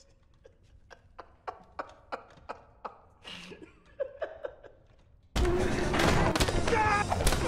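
A man's quiet, pained laughter in short repeated bursts, about three a second. About five seconds in, a sudden loud blast of dense noise cuts in.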